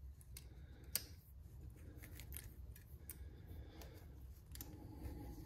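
Light metallic clicks and scrapes of a fork seal retaining clip being worked into its groove at the top of a fork slider, with one sharper click about a second in.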